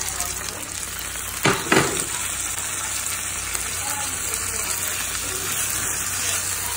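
Saltfish, onions and tomatoes frying in hot oil in a pan: a steady sizzle, with a wooden spoon stirring through it. A brief louder burst comes about one and a half seconds in.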